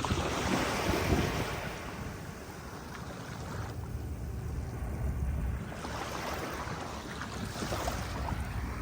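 Sea waves washing onto a beach, the hiss swelling and falling back in several surges, with wind rumbling on the microphone.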